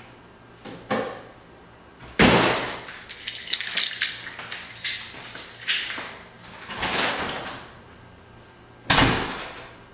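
Lotus Elise's Toyota 2ZZ-GE four-cylinder engine on a cold start: it fires with a loud burst about two seconds in, then is revved in a string of short blips, one longer rev, and a sharp blip near the end. A single knock about a second in, just before the start, fits the engine cover being shut.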